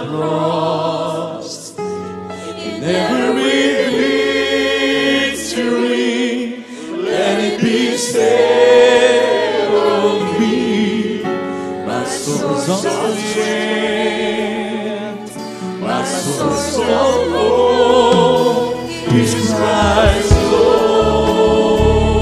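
Live gospel worship song: several voices singing in harmony with vibrato over electric keyboard accompaniment.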